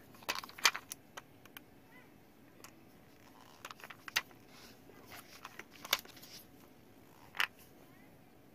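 A screwdriver working the small screws of a hover shoe's connecting-rod mounting plate: a scattering of faint clicks and scrapes of metal on screw heads and plastic, the sharpest under a second in and near the end.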